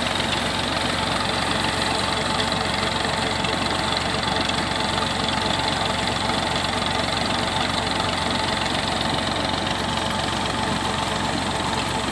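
Tractor engine running steadily under load, driving a new tubewell pump, with pumped water gushing from the outlet pipe into a brick basin.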